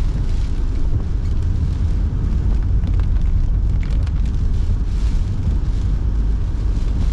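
Steady low rumble inside a moving car's cabin: road and engine noise with the heater blower running, and a few faint ticks around the middle.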